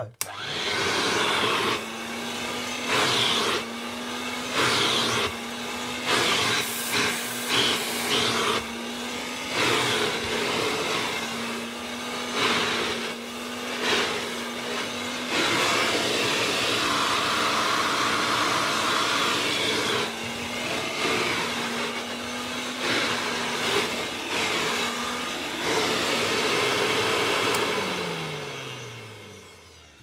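Vintage 1976 Hoover Dustette 2614B hand-held vacuum cleaner switched on and run over carpet: a steady motor hum under a rush of air that swells and dips repeatedly as the nozzle is worked. Near the end it is switched off and the motor winds down with a falling pitch.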